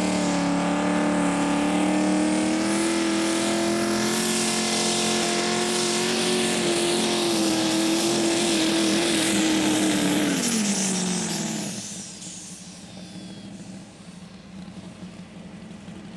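Small modified pulling tractor's engine running hard under load as it drags the weight sled, its pitch creeping slowly up with a thin high whine above it. About eleven seconds in the revs fall away and the sound drops to a much quieter low hum.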